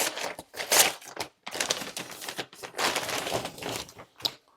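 Packaging crinkling and rustling in irregular bursts as a keyboard box is handled and unwrapped.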